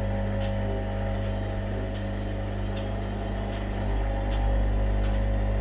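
Steady low mechanical hum made of several steady tones, with faint scattered ticks, growing a little louder about four seconds in.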